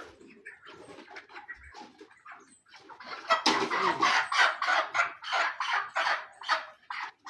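A flock of broiler chickens calling with many short, overlapping clucks and squawks, getting much louder about three and a half seconds in.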